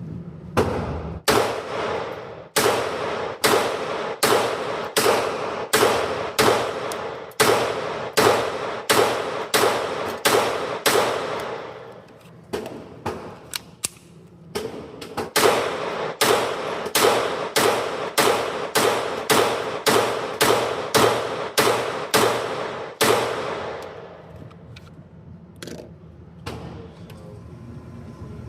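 Taurus TX22 Gen 2 Compact .22 LR pistol firing rapid shots at about two a second, each followed by a ringing tail. There is a short pause about twelve seconds in, then another run that stops near the end.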